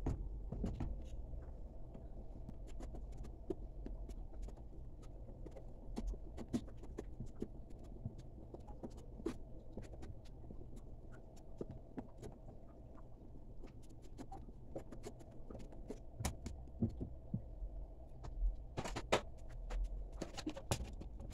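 Wooden spoon stirring a thick homemade soap mixture in a metal pot: faint, irregular clicks and scrapes of the spoon against the pot over a low steady hum, with a few louder taps near the end.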